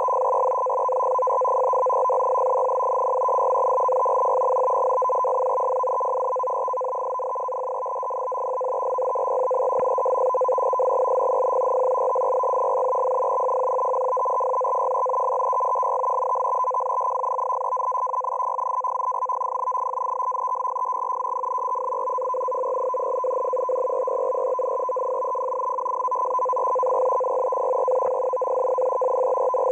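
Russian M42b digital shortwave transmission on 14380 kHz, heard through a receiver in CW mode: a continuous rapidly keyed data signal that sounds as a dense buzzing warble built on two steady tones, one higher than the other. It fades slightly about seven seconds in.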